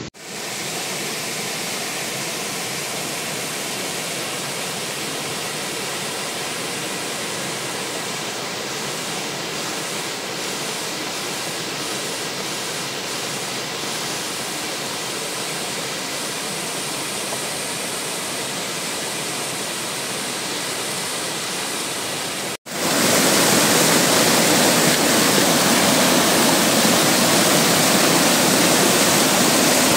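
Waterfall pouring over a rock ledge into a pool: a steady rushing of water. About three-quarters of the way through it cuts suddenly to a louder, fuller rush.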